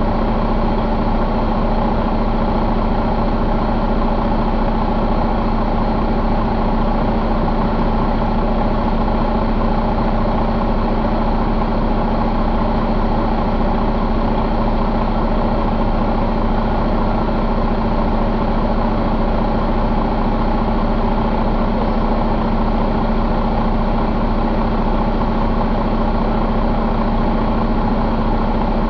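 2018 Detroit DD13 12.8-litre inline-six diesel engine idling steadily, its speed unchanging.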